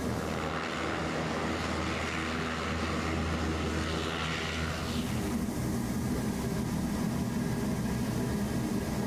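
LCAC hovercraft under way: a steady drone from its gas-turbine engines and propellers, with a rushing hiss of air and spray that drops away about five seconds in, leaving the engine drone as heard inside the craft's cockpit.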